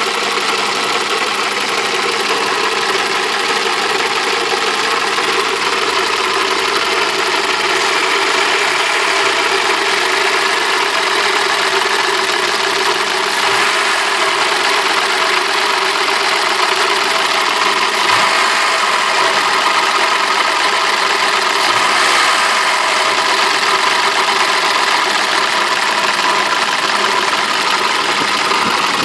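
BMW M20B27 2.7-litre straight-six engine running at a steady idle with a knock in it, the fault the recording is made to show.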